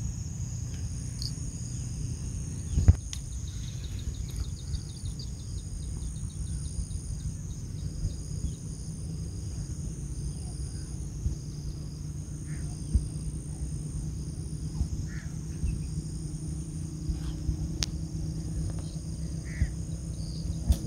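Insects chirring in a steady high drone over a low rumble, with a single sharp knock about three seconds in and a brief run of fast ticks just after it.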